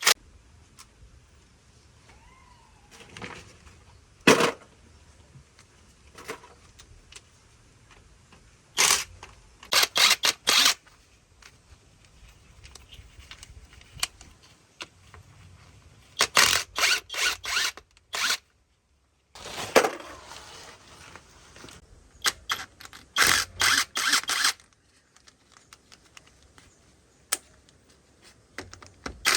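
Hand tools working metal: several bursts of rapid, sharp clicks a few seconds apart, with a faint low hum in the quiet gaps.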